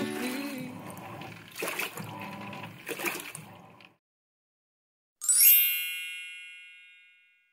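Background music with guitar fading out, then after a brief silence a single bright bell-like chime that rings and dies away over about two seconds.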